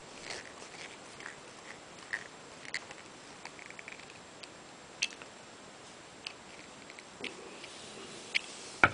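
Faint, scattered light clicks and taps over a low steady hiss: small handling noises from screwdriver work on a side-by-side shotgun's action.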